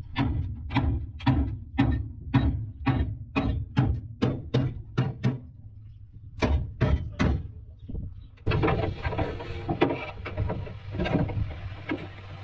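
Hammer blows striking at a steady pace of about two a second, then a short pause and three more blows. From about eight and a half seconds in, a steady workshop noise rises behind further knocks.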